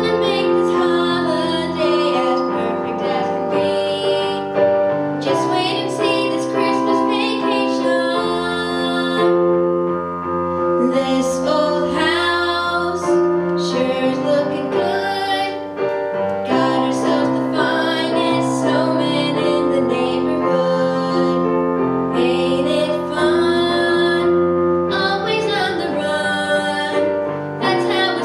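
A young girl singing a song into a handheld microphone, with piano accompaniment playing steady chords beneath her voice.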